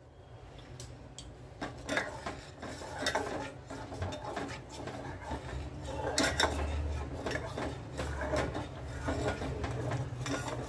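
Steel ladle stirring rice cooking in water in a stainless steel saucepan, with repeated clinks and scrapes of metal against the pan.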